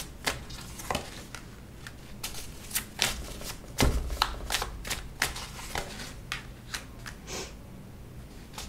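A deck of tarot cards handled and shuffled by hand: irregular soft flicks and snaps of cards. Cards are laid down on the cloth-covered spread, with a louder knock about four seconds in.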